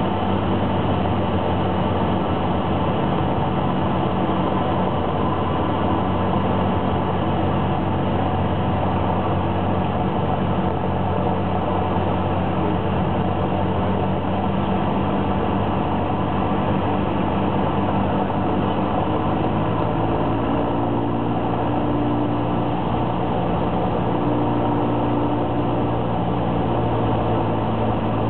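Cessna 172's four-cylinder Lycoming engine and propeller droning steadily, heard inside the cockpit on final approach. Its tone shifts slightly about twenty seconds in.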